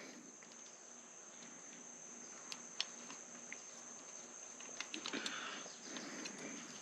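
Faint handling noise: a few light clicks and a soft rustle of parts being moved, over a steady high-pitched tone.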